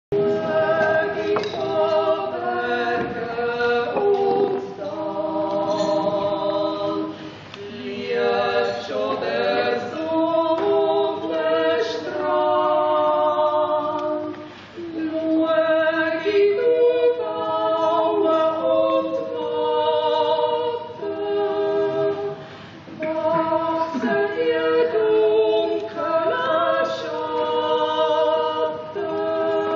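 Choir singing a cappella as background music: several voices holding long chords in phrases, with short breaks between them.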